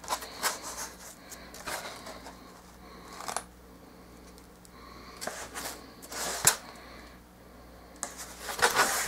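Scattered rubbing, scraping and light tapping from an extruded polystyrene foam tombstone prop being handled and turned over, with a sharper knock about six and a half seconds in.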